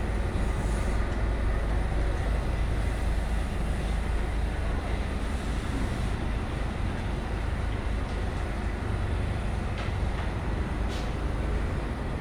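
Heavy diesel machinery of a concrete pour, the concrete mixer truck and concrete pump, running steadily with a continuous low engine drone.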